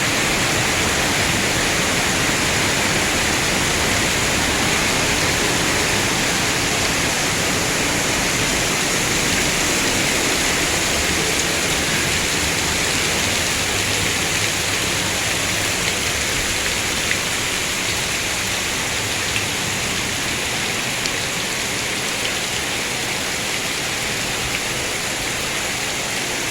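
Heavy rain falling steadily, a dense even hiss that eases slightly toward the end.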